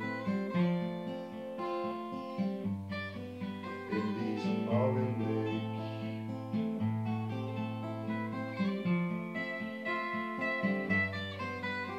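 Two acoustic guitars playing chords together in an instrumental interlude without vocals, the chord changing about every two seconds.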